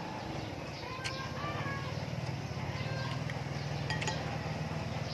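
A spoon and chopsticks clinking now and then against a noodle bowl during eating, a few sharp ringing clinks, over a steady low hum.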